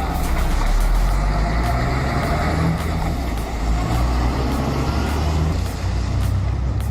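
Heavy diesel logging truck's engine rumbling low and steady under load.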